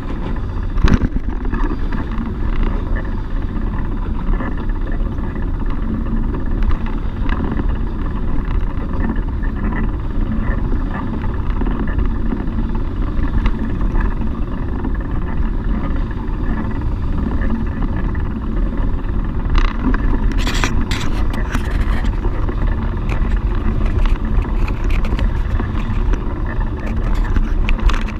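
Steady rumble and hiss of car traffic passing on the bridge roadway right alongside, with a cluster of sharp clicks about two-thirds of the way through.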